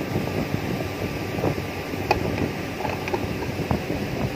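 TIG welding on thin stainless pipe: steady rushing noise, with a short arc tack at the start and a few light clicks and taps as the pipe is handled.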